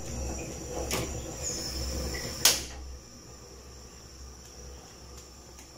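Gas stove control knob turned to light the burner: a faint click about a second in and a sharp, louder click about two and a half seconds in, over a low rumble that dies away about three seconds in.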